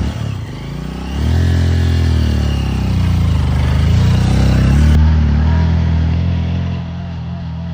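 Motorcycle engine just started and running, its revs picking up about a second in, dipping and rising again, then easing back near the end.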